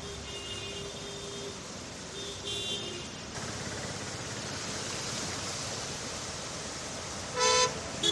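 Road traffic driving through floodwater: a steady wash of tyres churning and spraying water, with faint car horns in the first three seconds and two short, loud horn honks near the end.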